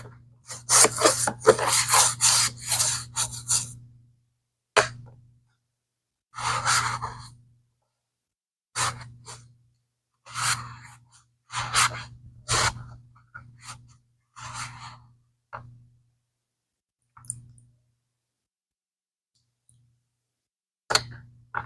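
A brush scrubbing a vintage Swiss Army leather bag: a run of quick strokes for the first few seconds, then short separate bursts of scrubbing with pauses between them.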